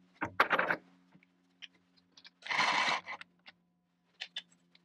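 A machine vise being loosened and a steel shaft lifted out of its jaws: a cluster of metal clicks and clunks, scattered light ticks, and a scrape of steel sliding out of the jaws about two and a half seconds in, over a faint low steady hum.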